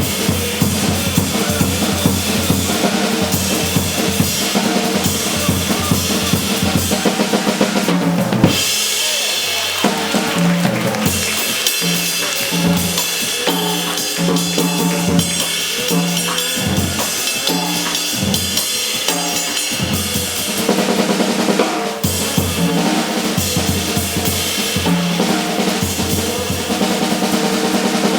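Live small jazz band playing, with the drum kit of snare, bass drum and cymbals to the fore over bass; the low end thins out for a stretch in the middle before the full band comes back about twenty seconds in.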